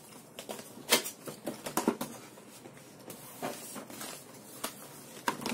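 Cardboard retail box being opened by hand: flaps and inner box rustling and sliding, with scattered taps and clicks, two sharper ones about one and two seconds in.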